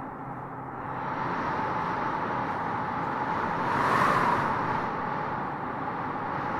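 Heavy-machine engine sound effect running steadily, swelling louder about four seconds in.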